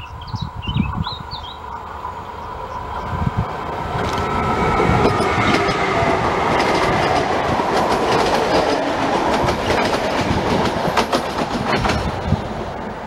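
Double-deck electric passenger train passing close by: rail noise swells to a peak and eases off again near the end, with a high whining tone and a run of clicks as the wheels cross rail joints. Wind buffets the microphone and a bird chirps during the first second or so.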